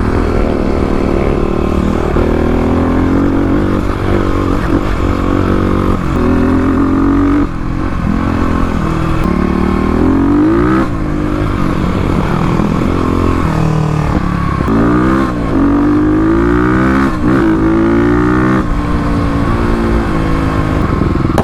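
Kawasaki KLX351 dirt bike, a big-bore single-cylinder four-stroke on an aftermarket exhaust, riding a trail. The engine revs up and down over and over, its pitch climbing and dropping with the throttle and gear changes.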